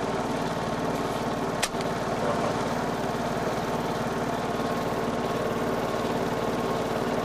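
Steady mechanical hum of a small motor, with an even buzzing pulse, and a single sharp click about one and a half seconds in.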